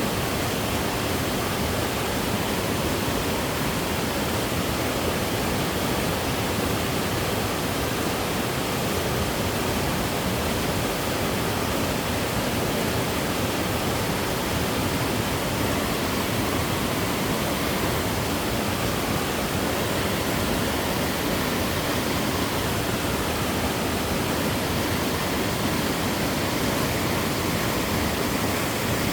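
Mountain-valley waterfall pouring into a stream, a steady, even rush of falling water.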